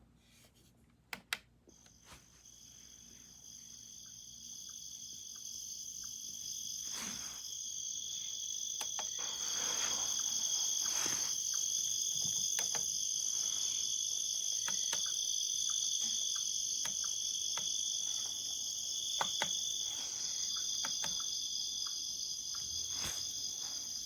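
Cricket chorus played as a sleep sound through an ecozy sunrise alarm clock's speaker: a steady high chirring that fades in over the first several seconds and cuts off suddenly at the end, with a few faint clicks.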